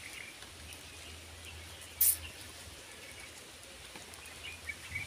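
Faint, scattered bird chirps over a steady outdoor hiss, with one brief loud rustle about two seconds in.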